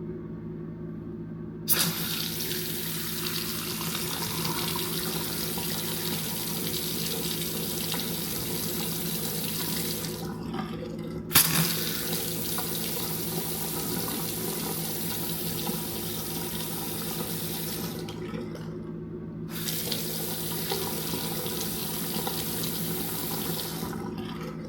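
Bathroom faucet running water into a sink in three spells with short breaks between, a sharp knock marking the second start: the first test of freshly connected sink supply lines.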